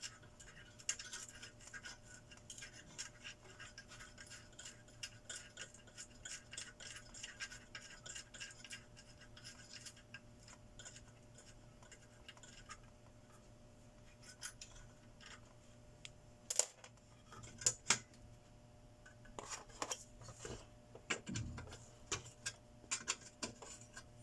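Hand work on the opened inverter welding machine: a fast, steady scratching or scrubbing for about the first half, then scattered light clicks and knocks of small metal parts being handled.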